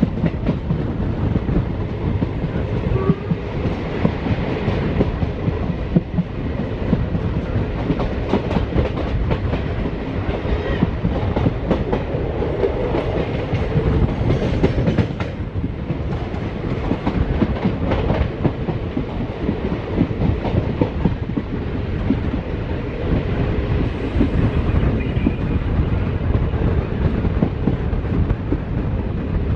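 Express train running on the rails, heard from aboard: a steady rumble with the wheels clicking over rail joints.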